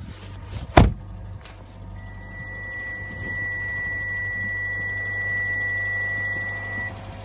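A car engine idling with a steady low hum. A single loud thump comes about a second in, and from about two seconds in a steady, high electronic tone sounds for about five seconds.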